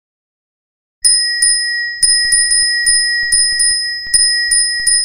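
A bicycle bell starts suddenly about a second in and is rung over and over in a quick, uneven ding-ding, about three strikes a second, each ring lingering into the next. It is the alarm for the end of the countdown.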